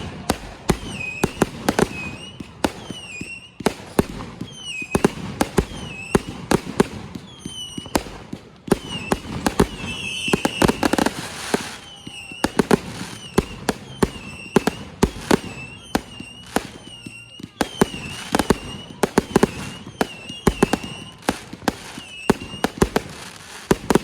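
Consumer firework cake firing a long multi-shot barrage: shot after shot, each with a short whistle and a sharp bang. A denser patch of crackling comes about ten seconds in.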